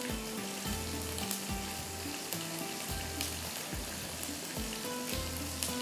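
Oil with spices sizzling and crackling in a pan, with a few sharp clicks. Soft background music with low held notes plays underneath.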